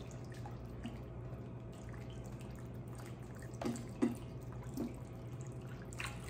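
Wire whisk stirring thick onion gravy in a stainless saucepan: soft wet sloshing and scraping, with a few louder clinks of the whisk against the pan a little past the middle and again near the end. The gravy is being stirred constantly to keep it from going lumpy. A low steady hum runs underneath.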